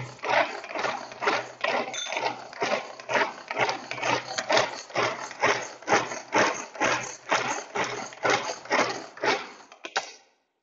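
Pigeon pull-cord hand chopper being pulled over and over, its blades spinning and clattering through pieces of dried coconut in the plastic bowl. It keeps an even rhythm of about three pulls a second and stops just before the end.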